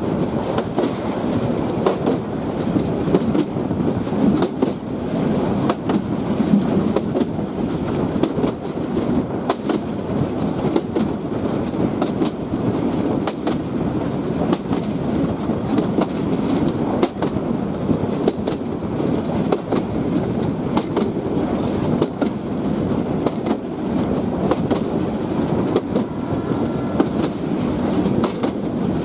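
Bangladesh Railway train running on the track: a steady rumble with many sharp clicks of the wheels clattering over the rails.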